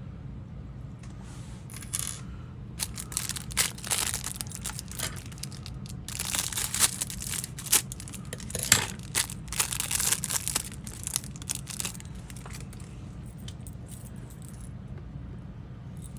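Plastic lure packaging crinkling and tearing as it is opened by hand, in irregular bursts of crackling that come thickest in the middle and die down near the end.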